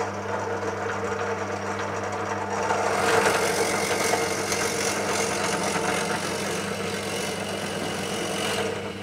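Bench pillar drill running with a steady motor hum while its bit bores holes through a softwood 4x2 board. The cutting noise of the bit in the wood swells about three seconds in and eases off just before the end.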